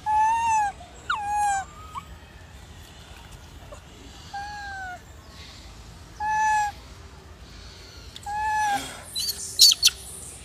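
Newborn macaque infant giving short, clear coo calls, each arching slightly in pitch, about five in all with gaps of one to two seconds. Two sharp clicks come near the end, louder than the calls.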